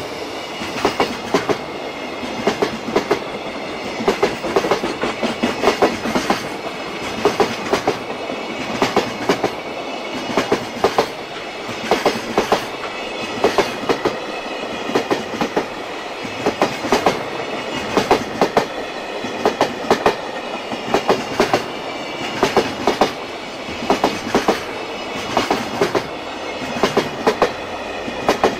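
JR Freight container train's flat wagons rolling past, the wheelsets clacking over rail joints in regular groups about once a second over a steady rumble of wheels on rail.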